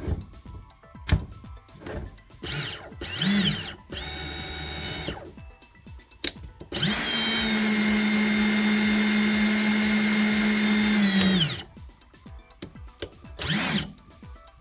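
Ridgid 18V SubCompact brushless drill/driver running with no load: a couple of short trigger pulls that spin up and wind down, a quieter steady run of about a second, then a steady motor whine held for about five seconds before winding down, with a few clicks between runs.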